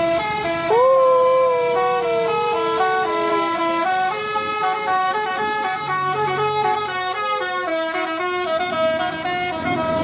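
Tourist bus's telolet basuri musical horn playing a quick melody of short stepped notes, with one long held horn note gliding slightly down in pitch in the first few seconds.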